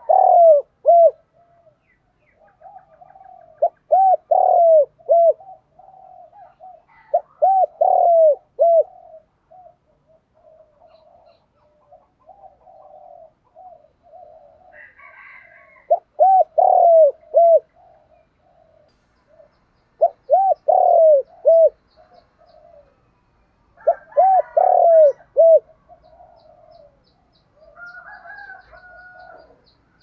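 Spotted dove cooing: six loud phrases of three to four short hooting notes, about every four seconds with a longer pause in the middle, and softer cooing between them.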